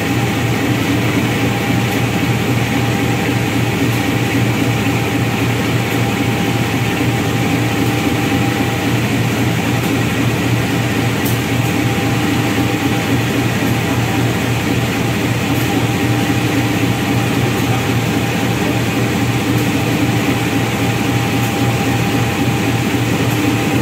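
CC203 diesel-electric locomotive's GE 7FDL-8 V8 diesel engine running steadily at idle, a constant deep drone with a thin steady whine above it.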